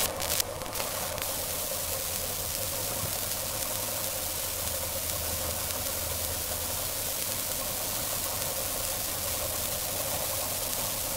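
Yamaha 60 hp two-stroke outboard running steadily, with a few sharp clicks in the first second. The engine is being tuned, its ignition timing advance being set.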